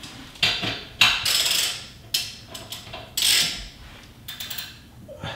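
Hand ratchet with a 15 mm socket on a bolt, clicking in several short, uneven strokes mixed with metal clanks.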